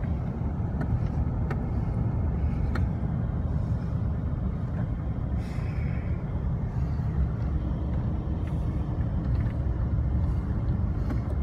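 Steady low road and engine rumble heard inside a moving car's cabin, with a few faint clicks in the first few seconds.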